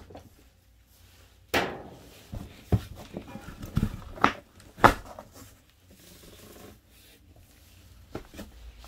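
Cardboard shipping box being opened and its packaging handled: scattered sharp knocks with rustling and scraping in between.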